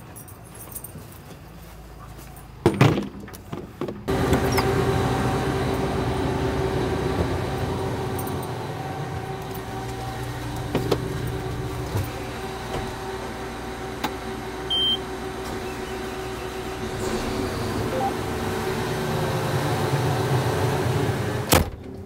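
A sharp knock, then about four seconds in a steady machine hum with a few constant tones starts abruptly and runs on, heard from inside a combine's cab as the machine is powered up.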